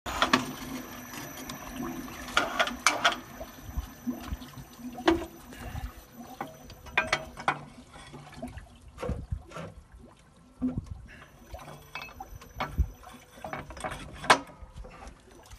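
Portable well-drilling machine at work: irregular metallic clanks and knocks with water running and splashing.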